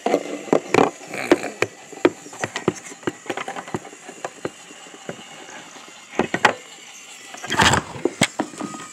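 Plastic TrackMaster toy trains and track clicking and knocking as they are handled, with scattered taps. Near the end comes a loud burst of handling noise as the phone is moved.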